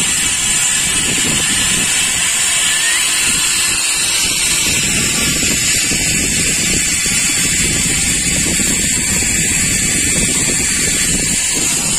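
Steady rushing, rumbling noise of a sky cycle riding along an overhead steel cable: the pulley wheels rolling on the cable, mixed with wind on the microphone.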